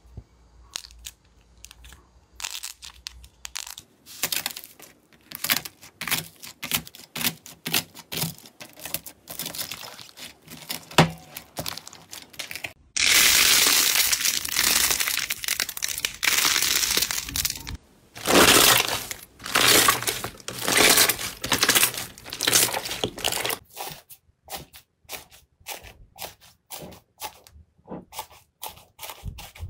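Hands squeezing and kneading slime and squishy toys: a run of crackling, popping and squishing sounds. A dense, loud crackle comes in about halfway and lasts around five seconds, and the pops turn sparse near the end as foam-bead slime is pressed.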